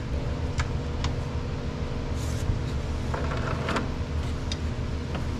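A steady low mechanical hum, with a few light clicks and taps of a hand wrench working the power steering pump's mounting bolts.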